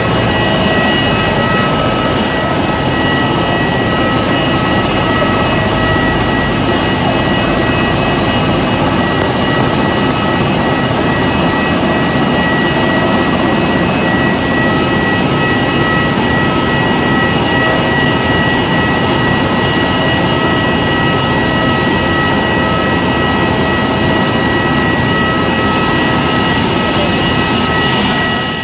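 Jet airliner noise on an airport apron: a loud, steady roar with a high, even whine running over it.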